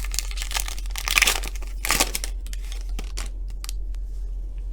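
Foil wrapper of a football trading-card pack being torn open and crinkled. The crinkling comes in bursts, loudest about one and two seconds in, then trails off into a few light rustles and clicks.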